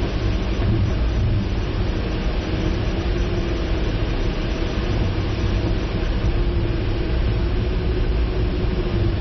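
Steady rumble and hiss of a car driving, with a faint engine tone wavering slightly in pitch.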